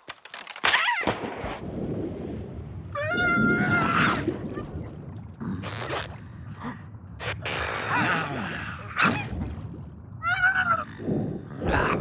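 Cartoon sound effects: a sudden hit just under a second in, then a low rumbling noise, with a cartoon character's high, wavering squawking cries twice.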